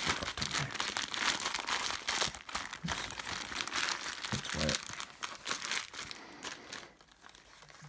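A stiff, crinkly stuff sack (Hyperlite large pack pod) being crumpled and folded in the hands, a dense crinkling that thins out and fades near the end.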